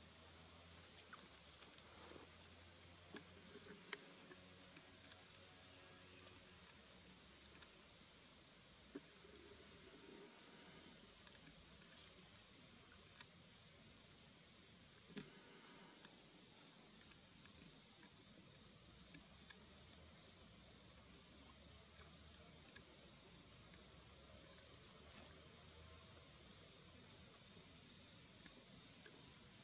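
Steady high-pitched chorus of insects, a continuous buzz without a break that swells slightly near the end.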